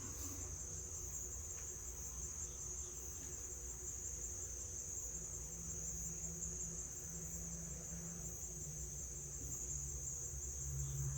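Steady, high-pitched trill of crickets over a faint low hum.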